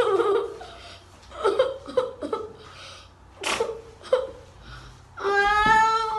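A young child's short giggles and vocal noises, then one long drawn-out whining cry starting about five seconds in.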